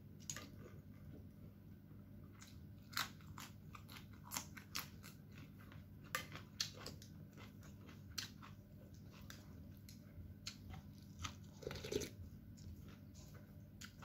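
A person eating instant noodle soup with meatballs close to the microphone: chewing and soft mouth sounds, with irregular sharp clicks from the mouth and from the spoon and chopsticks in the bowl, heaviest in the middle and again near the end.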